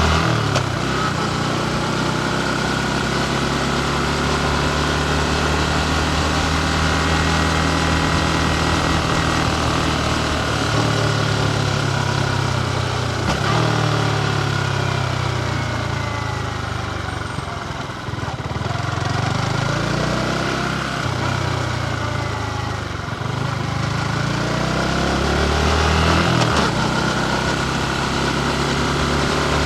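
Yamaha MT-15's 155 cc single-cylinder engine running as the motorcycle is ridden, its revs climbing and then dropping sharply several times.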